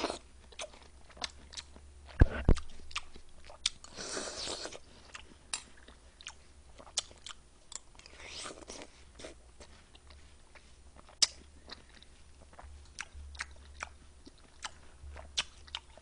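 Close-up eating of watermelon fruit punch with ice: chewing and crunching with many short sharp clicks, a few brief slurps, and a low thump about two seconds in.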